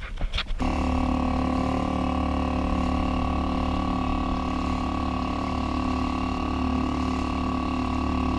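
A motor starts about half a second in and then runs at a steady, unchanging hum, driving the kayak along.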